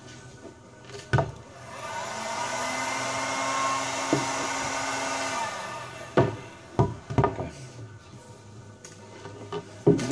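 Electric heat gun blowing steadily for about four seconds, warming a freshly laid vinyl decal, then switched off. A few sharp knocks from handling the fairing follow, with two or three close together about a second after it stops.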